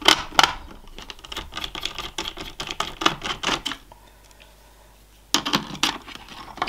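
Screwdriver undoing the two screws that hold a motherboard's M.2 heatsink: a run of small metallic clicks and scrapes for about four seconds, then a short cluster of clicks near the end.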